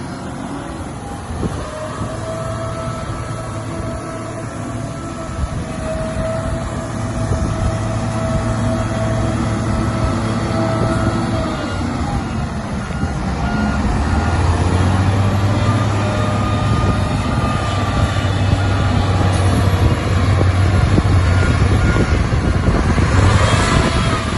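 Mack diesel engine of a heavy water truck running, getting louder and heavier about halfway through. A rushing hiss comes in near the end.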